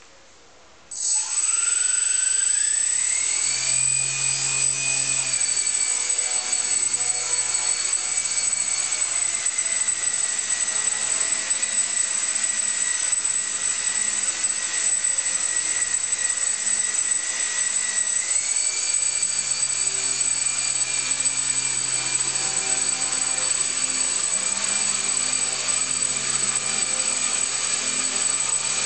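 Brushless motor spinning a small RC airplane propeller. It starts about a second in with a whine that climbs quickly, then holds a steady high whine over a rush of air. The pitch sags a little partway through and rises again later as the motor speed changes.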